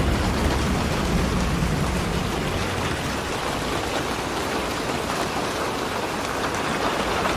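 Steady rain falling, an even hiss of drops, with the low rumble of thunder dying away in the first couple of seconds.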